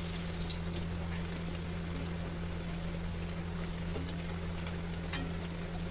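Batter-coated potato vadas deep-frying in hot mustard oil in a kadhai: a steady sizzle and bubbling of the oil, with a few faint ticks and a steady low hum underneath.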